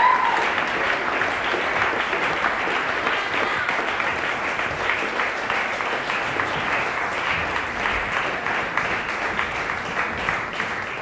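Audience applauding steadily, dense clapping, with a brief rising whoop from one listener right at the start.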